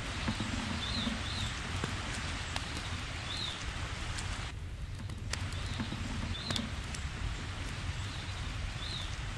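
Wind on the microphone, a low rumble under a steady hiss, with a small bird chirping briefly about half a dozen times. Light rustling and small clicks come from a canvas roll and its cord being handled.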